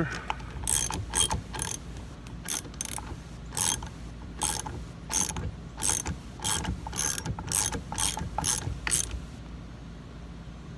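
A hand ratchet wrench tightening the propeller nut on a trolling motor shaft: short bursts of ratchet clicking on each back-swing, roughly two a second, which stop about nine seconds in.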